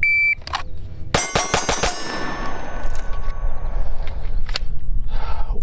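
A shot timer's start beep, then about a second later a rapid string of roughly six 9mm pistol shots from a Lone Wolf Dusk 19 Glock-clone pistol, about a sixth of a second apart, with steel targets ringing on after the string.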